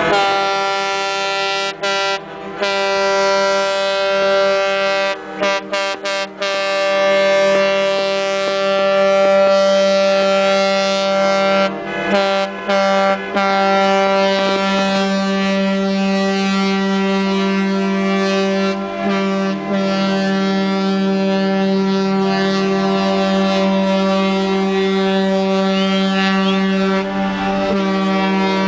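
Ships' horns sounding one long, continuous blast: several deep horns of different pitch overlap, and the sound cuts out for an instant a few times.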